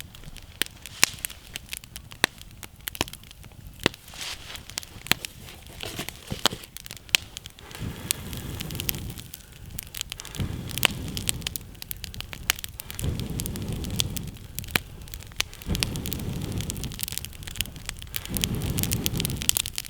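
Wood campfire crackling, with frequent sharp pops and snaps of burning sticks. In the second half a low rushing rumble swells up and dies away about five times, each lasting a second or two.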